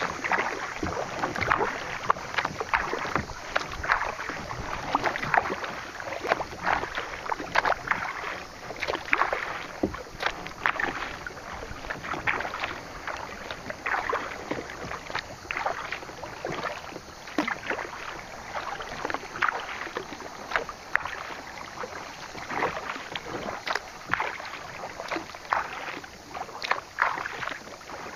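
Kayak paddle strokes splashing in the water, with water sloshing and lapping against the kayak's hull in an irregular run of small splashes.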